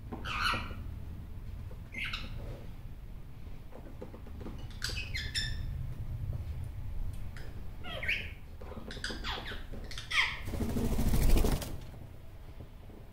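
Superb parrot (Barraband parakeet) giving a series of short calls a couple of seconds apart, then a loud flurry of wingbeats near the end as it flies onto the windowsill.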